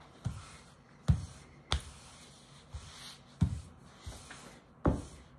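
Wooden rolling pin rolling out a large sheet of dough on a counter: soft rubbing strokes, with a dull knock about every second as the pin is pushed and set down, six or seven in all at an uneven pace.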